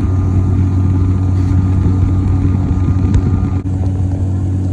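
Boat's outboard motor running steadily under way, a loud, even drone.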